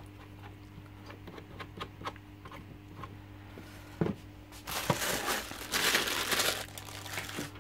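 A thin plastic bag crinkling and rustling in the hands for about three seconds, after a single knock about four seconds in.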